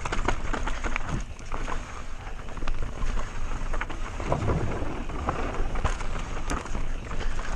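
Mountain bike descending a dirt singletrack: tyres on dirt and the bike rattling in quick clicks over the rough ground, under a steady rush of wind on the microphone, with a louder low rumble about four and a half seconds in.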